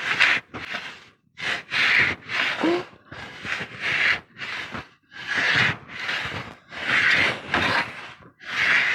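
Stanley No. 110 block plane taking repeated strokes along the corner of a piece of wood, rounding it over. Each stroke is a short rasping hiss as the blade cuts a shaving, about one a second.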